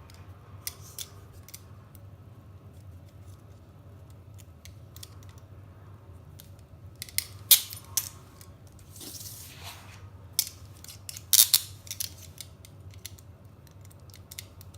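Police handcuffs being worked with a thin metal shim: scattered sharp metal clicks from the ratchet teeth and cuff, bunched about seven seconds in and again around eleven seconds, with a brief metallic scrape between them as the shim is slipped in.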